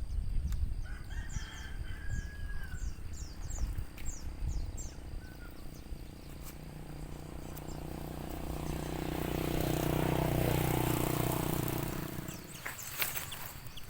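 A small bird gives a quick series of short, high, falling chirps in the first few seconds over a low rumble. Then a passing engine rises, is loudest about ten seconds in, and fades away.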